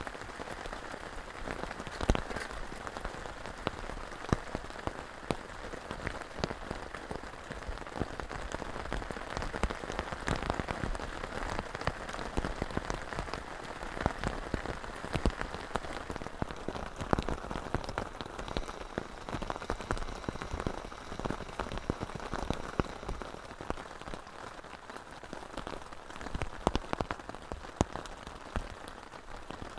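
Heavy rain falling steadily: an even hiss with many sharp single drops striking a camping tarp and tent fly.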